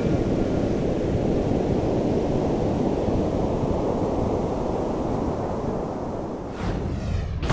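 Sea surf washing over and around shoreline rocks: a steady rush of waves. A short swish sweeps in near the end.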